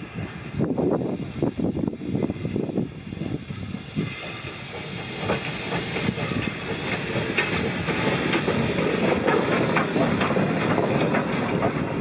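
RX class steam locomotive RX 207 working a train, steam hissing, with wheels clicking over the rail joints. The sound builds from about four seconds in and then holds steady.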